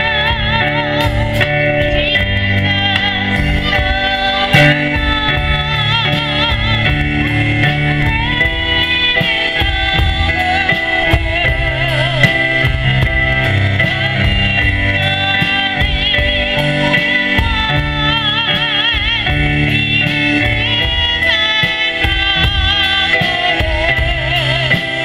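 Live band music: a drum kit keeping a steady beat under an electronic keyboard, with a wavering, sliding lead melody and possibly a woman's voice over it.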